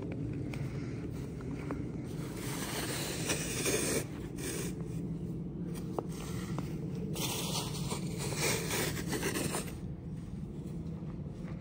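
Snow shovels with plastic blades scraping over a paved path, pushing snow into a pile in several long strokes.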